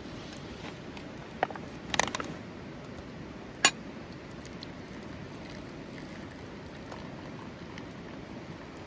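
A few sharp clicks and crinkles from handling a paper-lidded instant cup noodle as its lid is peeled back: a single click, a short cluster about two seconds in, and one loud click a little later, over a steady low background.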